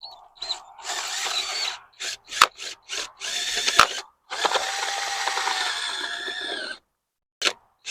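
Power drill turning a bulb-planting auger into the ground in several stop-start bursts, the longest lasting about two and a half seconds, with a few sharp clicks between them.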